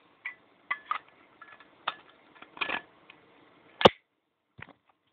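Zippo lighter insert being pushed back into its metal case: light metallic clicks and scrapes, then one loud, sharp metallic click a little before four seconds in.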